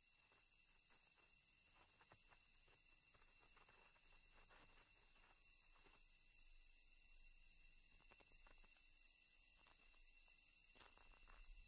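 Faint, steady trilling of night crickets, heard as two high steady tones.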